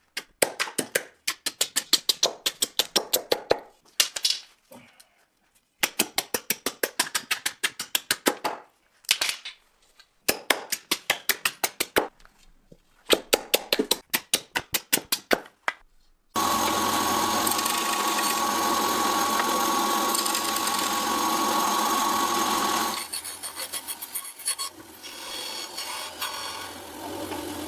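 A workshop machine striking in quick bursts, several strikes a second, each burst lasting one to two seconds with short pauses between. About two-thirds of the way through it gives way to a steady power-tool run with a high whine, which falls to a quieter, rougher sound near the end.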